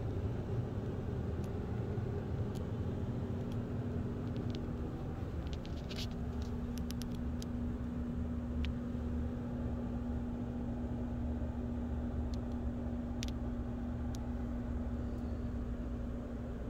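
Steady low mechanical rumble with a constant hum from a running motor inside the motorhome, with a few light clicks and taps in the middle.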